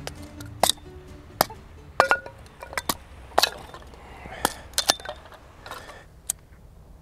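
A hatchet splitting kindling: about a dozen sharp, irregular wooden knocks and clicks. Background music underneath fades out in the first second.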